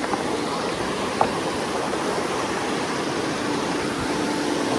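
Small creek rushing steadily over rocks and riffles, with one short click about a second in.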